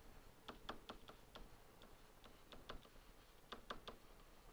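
Faint, irregular clicks and taps of a stylus on a pen tablet or touchscreen as words are handwritten, a few clicks a second in uneven clusters.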